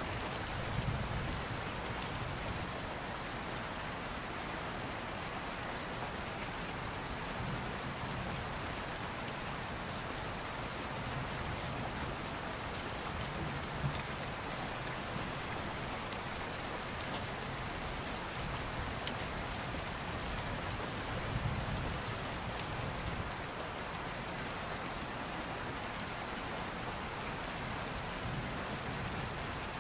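Steady rain: an even hiss with scattered faint ticks of drops, and now and then a soft low swell.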